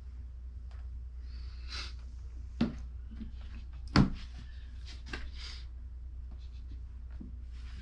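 Handling of soundbar parts and their packaging: scattered rustles and two sharp knocks, the louder one about four seconds in, over a steady low hum.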